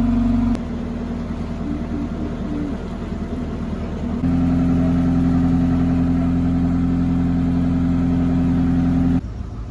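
Narrowboat's diesel engine running steadily under way, a constant droning hum. Its level drops about half a second in, rises again about four seconds in, and falls away near the end.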